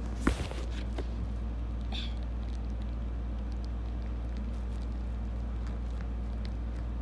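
A phone set down with a thump just after the start, then faint scattered snips and crackles of scissors cutting into a plastic mailer, over a steady low hum.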